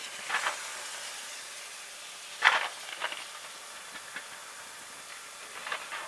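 Thunder in a recording sped up fifteen times, heard as a few short crackles over a steady hiss, the loudest about two and a half seconds in.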